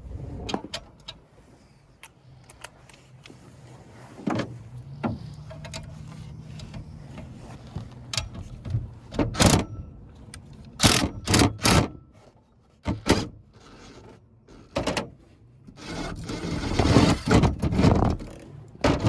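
Hand tools and metal parts of a package heat pump being handled during repair work. Irregular clanks and knocks come with scraping, and a longer scrape runs near the end. A steady low hum sounds for a few seconds in the middle.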